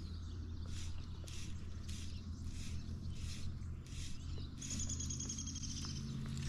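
Creek water running steadily, with soft swells of hiss. A songbird sings a rapid, even, high-pitched trill for about a second and a half past the middle.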